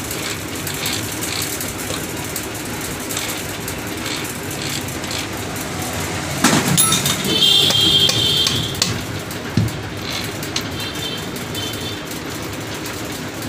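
Metal clicks, knocks and clinks from the Karizma R gearbox's gears and shafts being turned and worked by hand to check the gear engagement after fitting. There is a loud knock about six and a half seconds in, then a ringing metallic rattle for about two seconds and a shorter one near eleven seconds.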